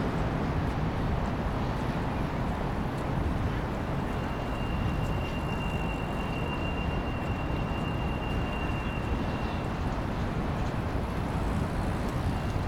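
Freight train rolling past well below, a steady low rumble. A thin high-pitched squeal is held for about five seconds midway.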